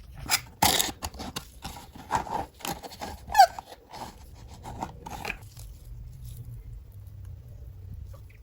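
Perfume box packaging handled by hand: a run of scrapes, rustles and taps over the first five seconds, with a short squeak about three and a half seconds in, then it goes quieter.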